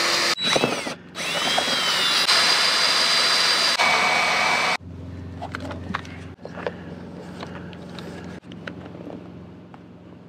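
Cordless drill boring mounting holes through a sleeper-cabinet panel, running in a few bursts with a steady high whine and slowing briefly once, then stopping sharply about five seconds in. After that, quieter small clicks and rustling of parts being handled.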